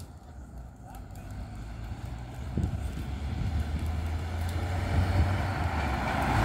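A Volkswagen sedan approaching along the road, its engine and tyre noise growing steadily louder as it nears.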